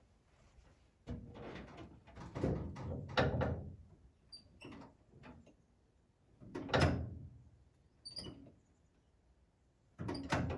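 Cab door of a 1931 Ford Model A pickup being opened and shut, among several scrapes and knocks. The sharpest knock comes about seven seconds in.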